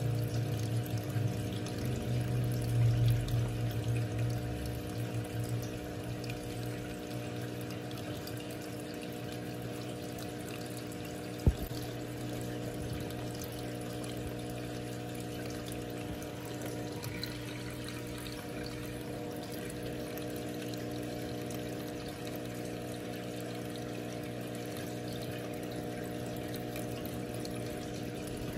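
Aquarium filter or pump humming steadily with water trickling, a little louder for the first few seconds. A single sharp click about eleven seconds in.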